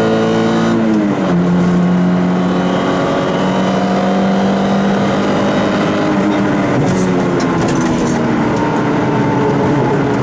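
Peugeot 106 rally car engine heard from inside the cabin, driving hard along the stage. Its note drops sharply about a second in, then holds steady and eases slightly lower near the end.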